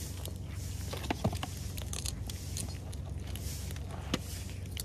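Cats chewing and crunching crispy fried fish, with irregular sharp crunches and clicks as they bite and pull at it on a metal tray.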